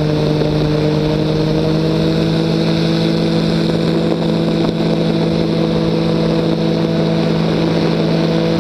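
Weight-shift trike's engine and propeller running at steady power in low-level flight, a constant drone that holds one pitch, with rushing air noise behind it.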